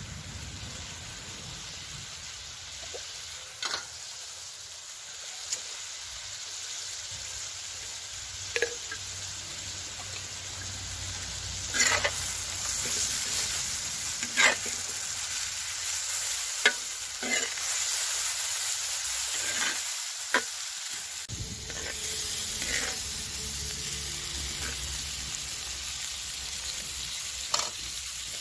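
Chicken and vegetables sizzling on a sac, a wide iron griddle, with a steady hiss. A slotted metal skimmer scrapes and knocks on the iron about eight times as the food is stirred and turned.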